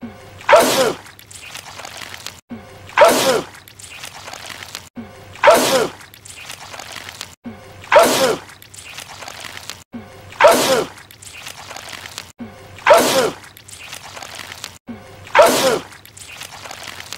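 A man sneezing hard, the same sneeze repeated seven times about two and a half seconds apart, each one sharp and falling in pitch.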